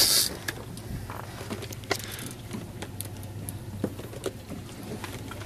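Scattered light clicks and knocks from rod-and-reel handling over a steady low hum, heard from the boat while a big fish is being played on heavy tackle.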